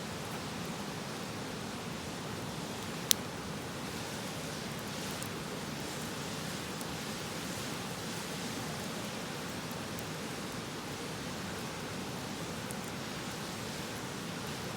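Steady rush of a river under a crackling wood campfire, with one sharp pop from the fire about three seconds in and a few fainter ticks later.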